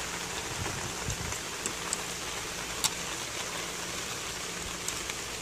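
Steady rain falling, with a few short sharp taps, the loudest about three seconds in.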